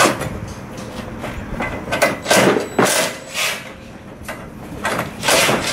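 A string of irregular knocks and rattles, about ten in a few seconds, from hand work on a school bus stop-arm assembly as its plates are taken off.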